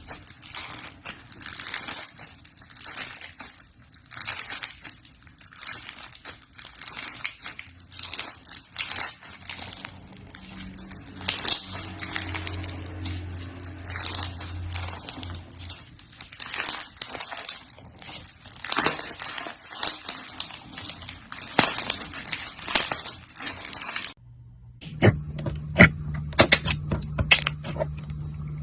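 Slime being pressed and squeezed by hand, giving a dense run of crinkling, crackling pops. About 24 s in the sound breaks off and a second slime clip starts, with sharper pops over a steady low hum.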